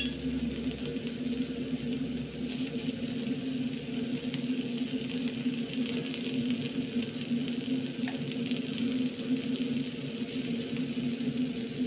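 A steady, even low mechanical hum, like a motor or fan running, with a faint hiss above it.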